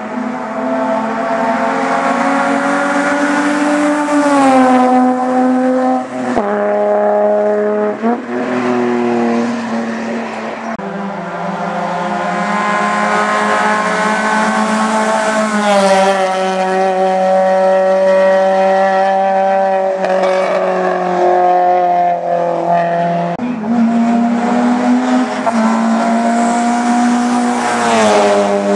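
Race car engine working hard at high revs up a hillclimb course. The revs hold, then drop sharply at each gear change or lift several times over, with one long build-up in pitch before a drop.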